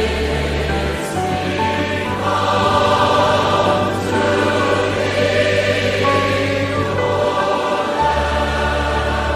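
A large choir singing a slow hymn over long held bass notes that change every second or few.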